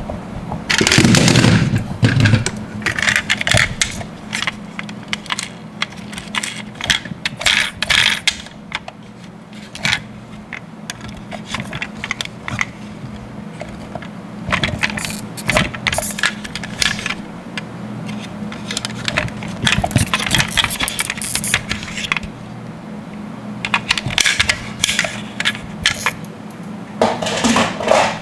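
Die-cast metal toy cars clinking and clattering against one another as they are picked up and shifted in a pile, in irregular runs of knocks and scrapes, with louder clatters about a second in and near the end.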